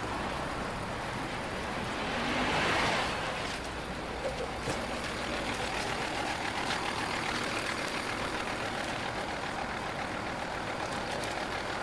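City street traffic: a steady mix of vehicle engines and road noise, with a loud hiss swelling and fading about two to three seconds in.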